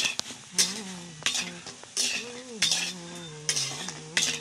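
Metal spatula scraping and knocking against a large metal karai (wok), about every two-thirds of a second, as pitha fritters are turned in sizzling oil.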